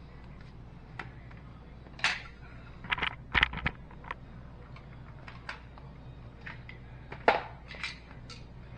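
Scattered light clicks and knocks, as of parts and tools being handled during dishwasher repair work, with a cluster a few seconds in and the sharpest knock near the end, over a steady low hum.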